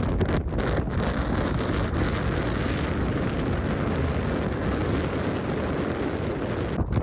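Strong mountain wind blowing across the microphone: a steady, loud rumbling hiss with no let-up.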